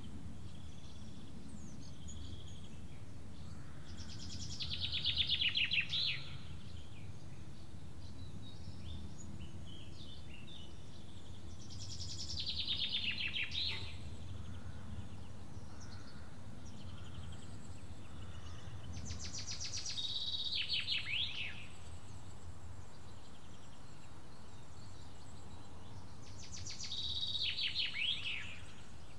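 A songbird sings the same short, fast, descending trilled phrase four times, each about two seconds long and about seven seconds apart, with faint chirps in between. Under it runs a steady low background hum.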